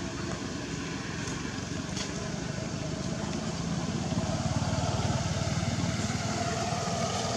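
A motor engine running steadily with a fast, even pulse, swelling slightly about four seconds in.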